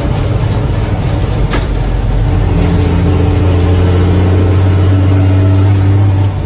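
Heavy truck's diesel engine running steadily under way, heard from inside the cab as a loud, low drone. There is a single sharp click about a second and a half in, and the engine sound drops off near the end.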